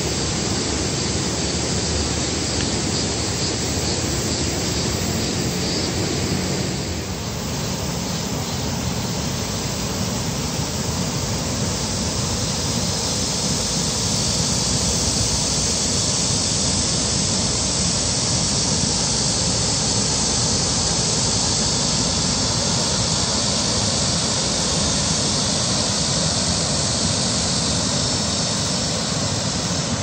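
Loud, steady outdoor hiss with no pitch or rhythm, strongest in the upper range, dipping briefly about seven seconds in.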